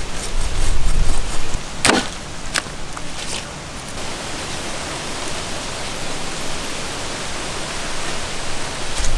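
Steady, even hiss-like noise, with one sharp knock about two seconds in and a couple of fainter clicks just after.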